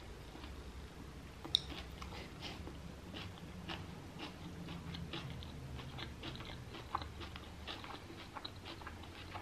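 A person biting and chewing a rice paper roll filled with salmon, tuna and salad: many small mouth clicks throughout, with one sharper click about one and a half seconds in.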